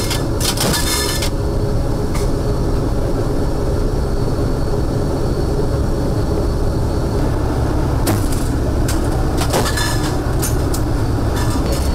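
Steady, loud drone of the AC-130U's four turboprop engines heard inside the cabin, with ringing metallic clanks of ammunition and gun gear being handled in the first second and again several times from about eight seconds in.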